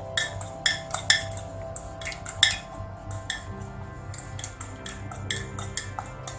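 A utensil clinking repeatedly against a bowl as mashed banana, dates and cream cheese are stirred together. The clinks come quickly at first and thin out after about three seconds. Background music plays throughout.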